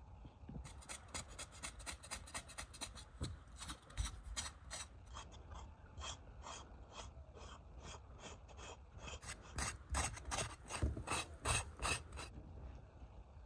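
Knife blade scraping the skin of a raw beef leg in repeated rasping strokes, several a second, more spaced and louder in the second half, stopping about a second before the end.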